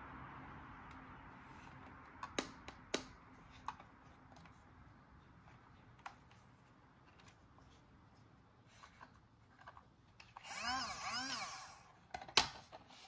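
A few sharp plastic clicks, then a motor-like whirring from a toy that rises and falls in pitch twice over about a second and a half, followed by another click.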